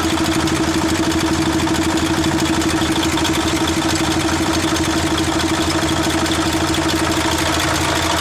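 Mercedes-Benz Actros 1841 diesel engine idling steadily, with a strong steady whine over its running. It is being checked injector by injector: the mechanic finds some injectors not working and low pressure, which he takes for the cause of its hard starting.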